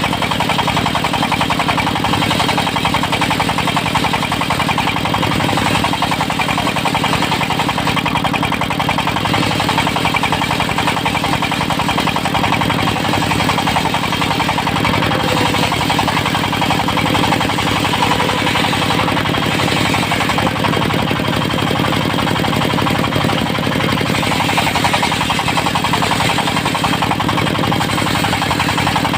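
Diesel engine of a portable circular-saw sawmill running steadily with a fast, knocking beat.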